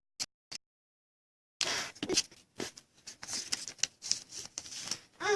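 Trading cards being handled and flipped, with irregular light scratching and ticking after a second-long gap of dead silence. A cat starts to meow right at the end.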